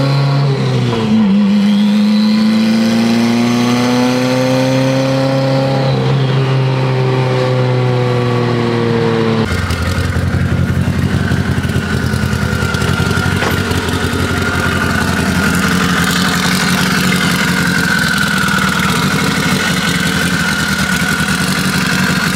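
Car engine heard from inside the cabin while driving, its pitch dropping once and then slowly rising and falling. About ten seconds in it cuts to a steadier, rougher engine idle with a thin high whine over it.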